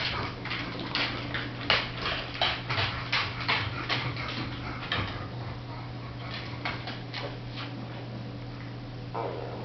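A dog making a run of short, noisy breathy sounds, a few a second, which thin out after about five seconds, over a steady low hum.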